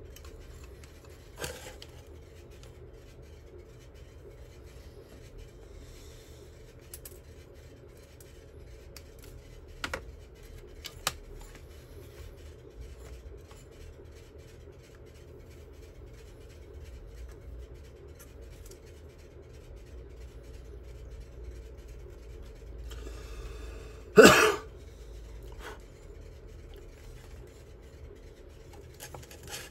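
Hand tools and parts being handled on a workbench during disassembly: a few sharp clicks, then a scrape and a loud knock about three quarters of the way through, over a low steady hum.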